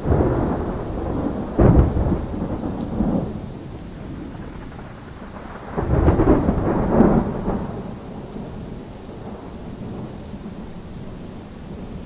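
Thunderstorm: thunder rumbling over steady rain, with a sharp clap about one and a half seconds in, a smaller rumble around three seconds, and another long, heavy rumble about six to seven seconds in.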